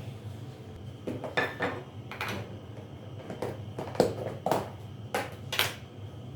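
Kitchenware being handled and set down: a string of sharp clinks and clatters, about nine knocks spread over five seconds, over a low steady hum.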